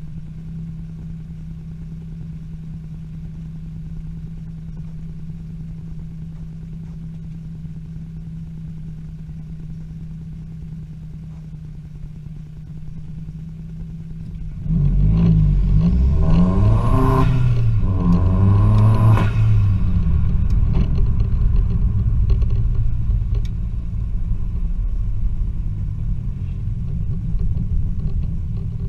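Vauxhall Astra van's turbocharged 2.0-litre Z20LET four-cylinder engine, heard from inside the cab, idling steadily, then pulling away hard about halfway through. The revs climb twice in quick succession with a gear change between, then it settles into steady louder running.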